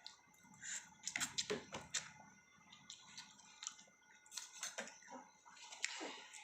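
Eating sounds from a plate of spicy mie goreng noodles: irregular short chewing and slurping noises with a few light clicks of cutlery on the plate.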